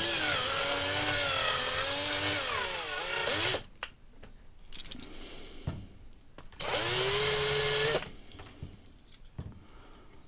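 Small power drill with a small bit drilling out the rivet posts of a die-cast toy car. One run of about three and a half seconds, its whine wavering in pitch under load. After a pause comes a shorter run that rises in pitch and then holds.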